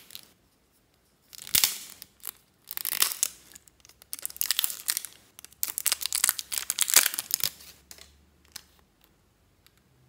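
Crackly plastic crinkling and rustling in four bursts of a second or two each as a lipstick in a clear plastic case is handled and opened.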